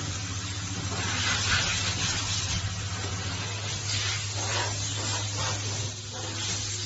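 Ultrasonic plastic welding machine running: a steady low hum under hissing air that swells and fades several times, typical of the machine's pneumatic press exhausting.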